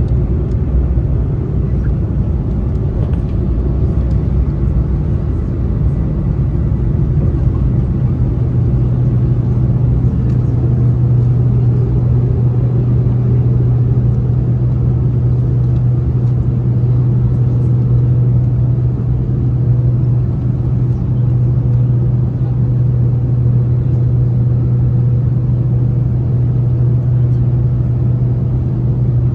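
Cabin noise inside a Boeing 787-9 airliner during takeoff: a loud, steady engine drone over a low rumble. The rumble eases about six seconds in, leaving a smoother, steady low hum.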